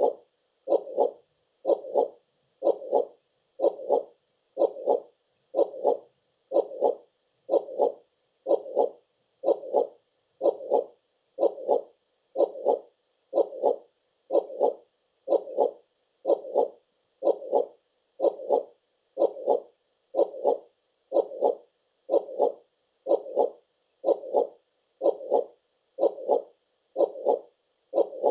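Heartbeat, a steady lub-dub double beat repeating evenly about once a second, roughly 60 beats a minute.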